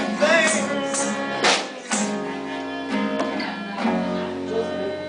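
A small acoustic band playing live: acoustic guitar with fiddle and snare drum.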